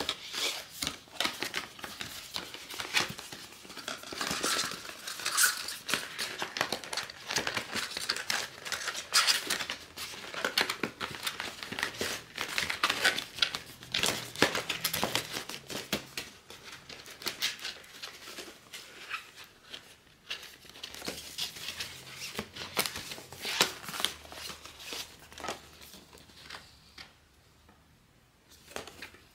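Blind-box packaging being handled and opened by hand: dense crinkling, tearing and rustling with sharp little clicks and taps, thinning out near the end.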